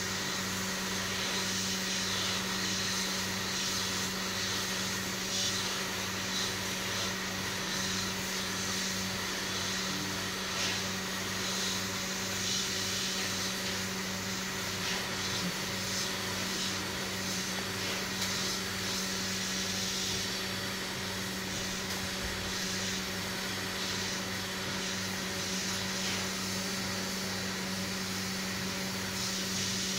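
Hot air rework station's handpiece blowing hot air over a motherboard chip to desolder it, its fan giving a steady hum and hiss.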